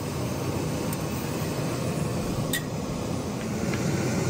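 Backpacking canister stove burning at full flame with a steady roaring hiss, and one sharp click about two and a half seconds in.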